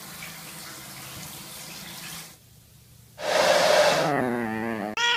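A steady hiss for about two seconds, cut off by a short break. Then a louder rushing hiss, with a drawn-out cat yowl falling in pitch near the end.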